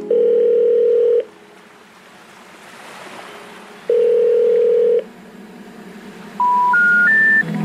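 Telephone line tones: two steady one-second tones about four seconds apart, then three short notes stepping up in pitch, the special information tone that signals a call that cannot be connected.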